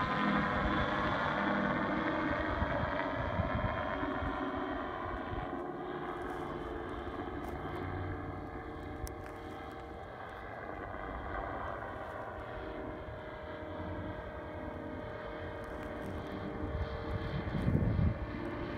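Propeller engine of a Dragonfly ultralight tow plane droning as it flies past and away, loudest at first and fading over the first half, its pitch dropping slightly. A fainter steady drone remains, with a brief low rumble near the end.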